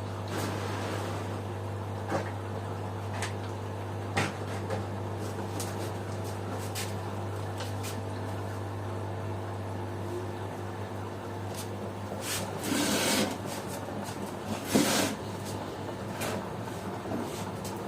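LG washing machine running: a steady motor hum with scattered clicks and knocks, and two louder swishing rushes near the end.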